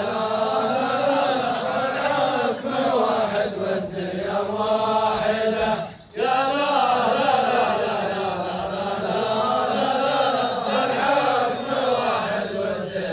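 A voice chanting a Nabati poem in long, drawn-out melodic lines that rise and fall, with one short break for breath about six seconds in.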